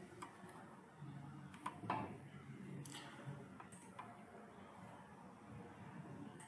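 A handful of faint, scattered clicks from a computer mouse being used to navigate a file dialog, over low background noise.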